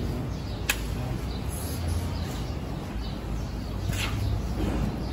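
Metal ladle scraping and knocking against a large metal pot of cooked rice as the pulao is turned over. There is a sharp clink under a second in and a scraping knock about four seconds in, over a steady low rumble.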